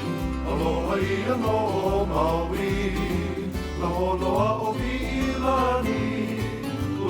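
Music: a song with a singing voice over guitar and a steady bass line.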